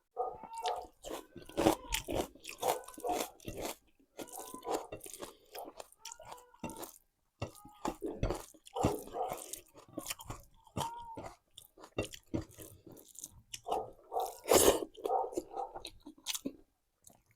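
A person chewing mouthfuls of rice and curry close to the microphone: wet, open-mouthed chewing with many short mouth clicks, and one loud bite about 14 and a half seconds in.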